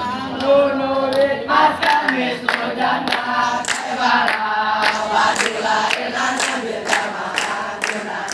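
A large group of boys chanting a yel-yel cheer in unison, clapping in time, about two claps a second.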